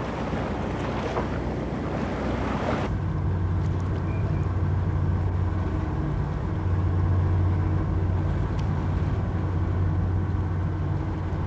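A rush of sea and wind for about three seconds, cut off abruptly, then the steady low drone of a boat's engine heard from on board.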